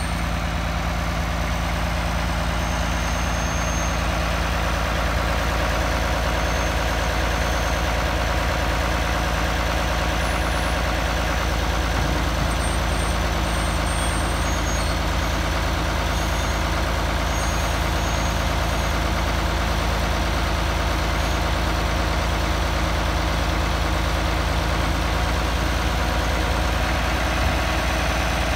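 International Farmall 966 tractor's engine running steadily at idle.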